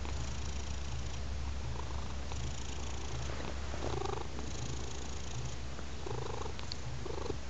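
Domestic cat purring steadily close to the microphone: a low, continuous purr that pulses in a regular rhythm.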